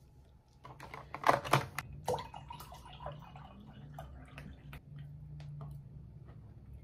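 A plastic water bottle handled with a few sharp crackles about a second in, then water poured from it into a mug.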